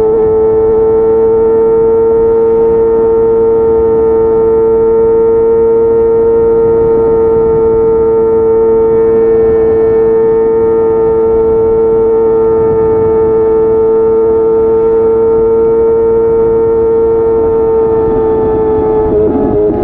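Kawasaki ZX-25R SE's 250cc inline-four engine, breathing through a Yoshimura R55 slip-on exhaust, running at a steady high-revving pitch, held for a long stretch. Near the end the pitch dips slightly.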